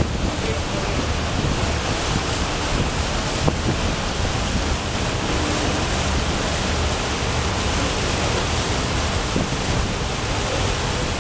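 Steady rush of wind and splashing water aboard a moving boat, with wind buffeting the microphone and a low steady hum underneath.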